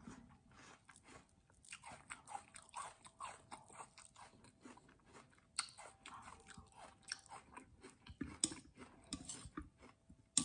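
Faint close-up chewing and crunching of water chestnut and toddy palm seed pieces from a sweet iced syrup dessert, with small irregular wet mouth clicks and one sharper click about halfway through.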